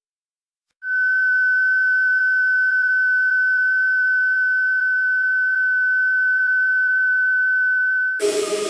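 Factory automation machinery whine: after a moment of silence, a loud, steady high-pitched tone starts about a second in and holds without changing, then shortly before the end it switches abruptly to a lower, rougher hum with hiss.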